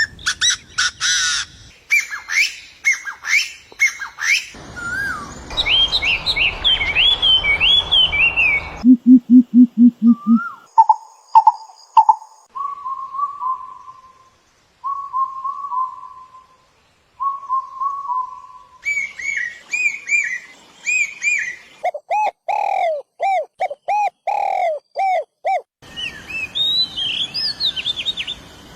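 A sequence of different birds' calls and songs cut one after another, changing abruptly every few seconds: fast high chirps and trills, a short run of rapid low pulsing notes, then a bird repeating a short mid-pitched note several times, and more chirping.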